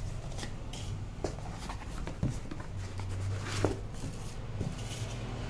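Unboxing handling noise: a cardboard shipping box being opened and a shrink-wrapped retail box slid out and picked up, with irregular rustling and scraping of cardboard and plastic wrap and one sharper scrape about three and a half seconds in. A low steady hum runs underneath.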